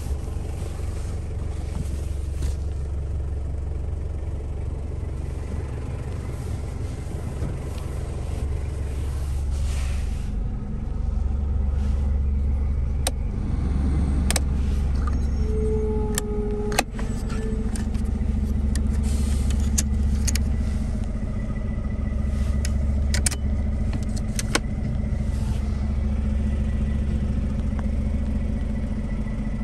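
The Hilux Surf's 1KZ-TE 3.0-litre four-cylinder turbo diesel idling, heard from inside the cabin, with a few sharp clicks from switches and trim. Partway through, a steady hum from the rear heater's blower fan joins it.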